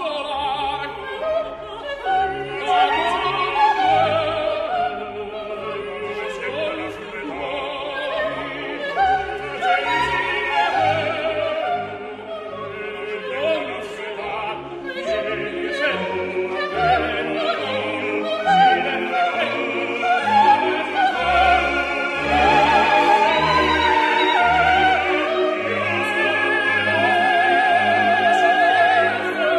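Opera music: an Italian aria with orchestral accompaniment, the melody carried with a wide vibrato, ending on a long held, wavering note near the end.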